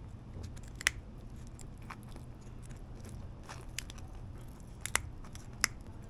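Rib bones of a grunt being cut through while butterflying the fish, giving about six short, crisp crunching snips at irregular spacing.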